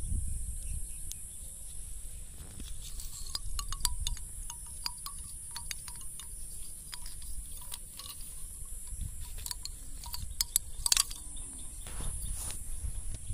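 A steady high-pitched insect drone, with a low rumble underneath and scattered light clicks and taps.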